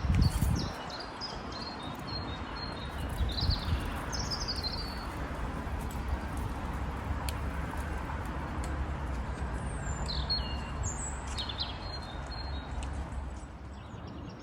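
Songbirds chirping in short, scattered high calls, over a steady low rumble, with a brief low thump at the very start.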